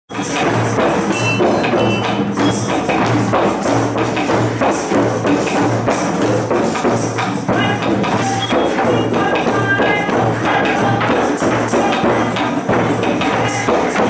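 A drum circle playing together: djembes and other hand drums beaten in a dense, steady rhythm with a low beat about two to three times a second, and plastic boomwhacker tubes struck over the top.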